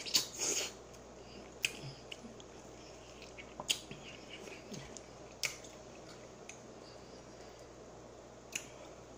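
A person chewing a fried chicken drumstick close to the microphone, with several sharp wet mouth smacks and clicks spread through the chewing.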